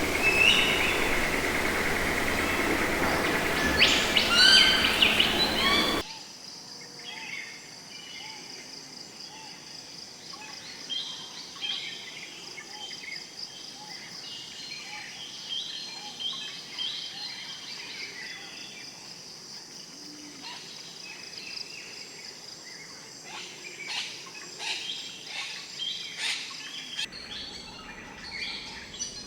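Wild birds calling over loud outdoor ambience, then an abrupt cut about six seconds in to a quieter chorus of many small birds chirping, with a steady high drone underneath.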